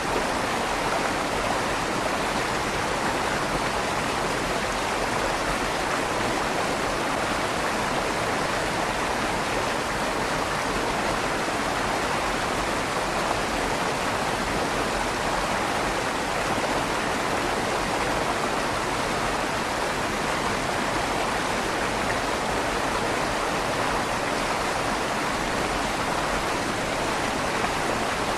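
River water flowing steadily through the tunnel under a stone bridge, a constant rushing with a slight echo off the tunnel walls.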